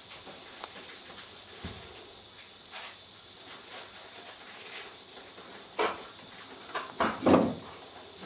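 Steady high chirring of insects, with a few short knocks and one louder thump near the end.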